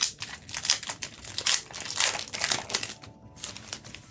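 Foil wrapper of a trading-card booster pack crinkling and crackling as it is handled and opened. There is a dense run of crackles for about three seconds, then it goes quieter near the end.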